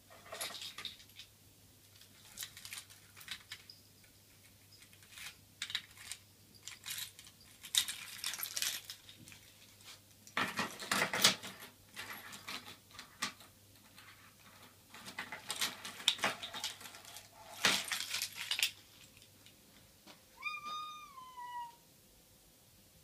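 A plastic cat flap rattling and clicking in irregular bursts as a cat pushes at it and through it. Near the end a cat meows once, the call dropping in pitch as it ends.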